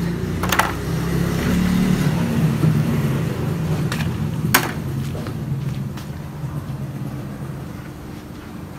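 A motor vehicle engine hum that swells over the first couple of seconds and then slowly fades away, as of a vehicle passing by. Two sharp clicks, about half a second and four and a half seconds in, from hard dried mushrooms knocking as they are handled.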